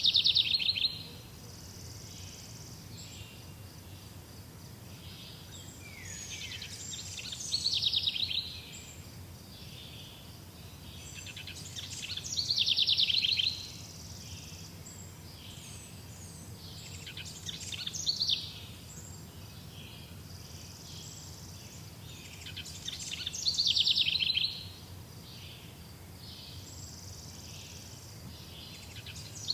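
A songbird singing the same short song over and over, roughly every five to six seconds; each phrase runs quickly up in loudness into a fast, high trill and stops abruptly.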